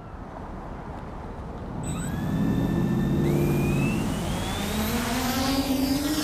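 Team Black Sheep Discovery quadcopter's brushless motors spinning up for take-off. About two seconds in they start with a low hum and a rising whine, growing louder as the craft lifts off near the end.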